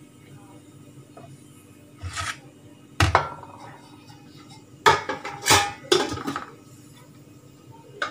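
Dishes and utensils clattering: a short scrape about two seconds in, then a few sharp clinks and knocks, the loudest about three and five seconds in, over a low steady hum.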